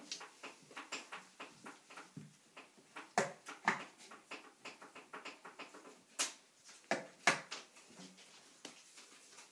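Scattered light clicks and taps of magnets and paper cards being put on a magnetic whiteboard, with a few sharper clacks about three seconds in and twice more between six and seven and a half seconds.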